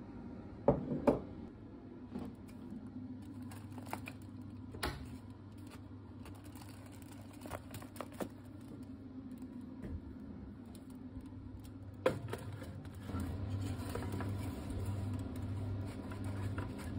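Handling of a foil-lined baking tray and an oven: scattered sharp clicks and knocks, the loudest near the start and about twelve seconds in, over a steady low hum that grows louder in the last few seconds.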